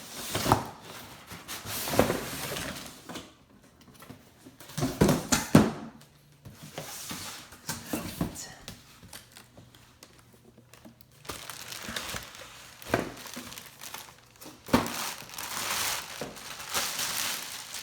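Packaging being handled: irregular crinkling and rustling with some tearing and sharp clicks as the radio is unpacked, loudest about two and five seconds in.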